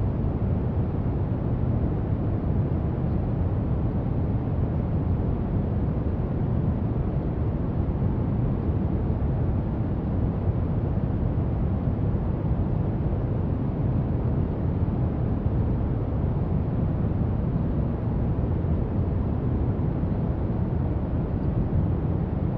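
Steady brown noise: an even, unbroken hiss weighted heavily toward the low end, with no change in level.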